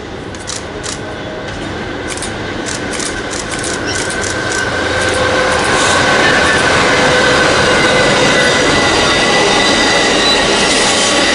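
Amtrak passenger train led by Siemens ALC-42 Charger diesel locomotives approaching and passing, growing louder over the first six seconds with a run of clicks as the wheels cross rail joints. Then a steady, loud rumble of the double-deck Superliner cars rolling by, with high steady squealing tones from the wheels.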